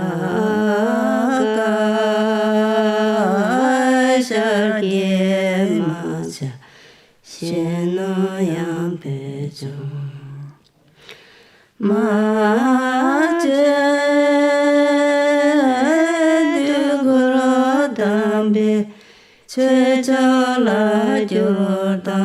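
A single voice chanting or singing in long held notes, in four phrases separated by short pauses for breath.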